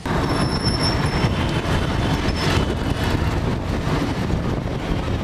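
Ride noise from an open vehicle driving along a city street: a loud, steady engine and road rumble, with a thin high squeal about half a second in that lasts about a second.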